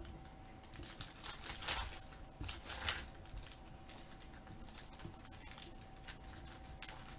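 Foil trading-card pack wrapper being torn open and peeled apart by hand, crinkling in several crackly bursts over the first three seconds, then fainter rustles and clicks.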